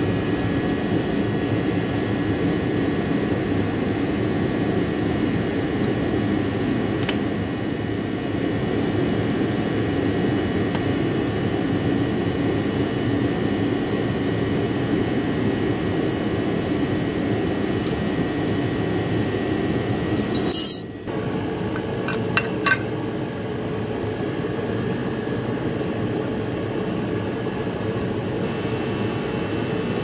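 Steady mechanical drone of a running fan-type machine in the workshop. It breaks off for a moment about two-thirds of the way through, and a few light metal clinks of hand tools follow.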